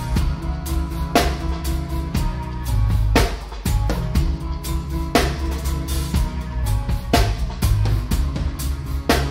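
Live reggae band playing close up beside the drum kit: a heavy bass line and held keyboard-like tones under the drums, with a sharp drum stroke about every two seconds.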